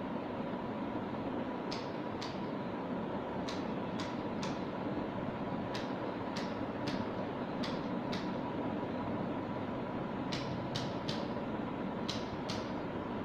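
Chiropractic Activator adjusting instrument firing: about fifteen short, sharp clicks in quick pairs and triples, a few seconds apart, over a steady background hiss.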